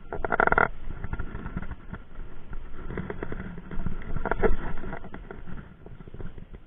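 Kamikaze Gorgon baitcasting reel cranked in short spells during jigging, with fine clicking and knocks from handling the reel and rod, over a low rumble of wind and water.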